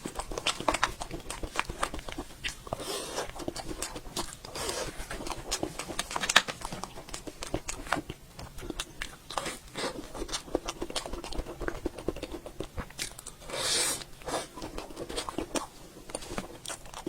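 Close-miked eating sounds of a cold jelly dessert: biting and chewing, with many quick wet clicks and a few louder noisy bursts about 3, 5 and 14 seconds in.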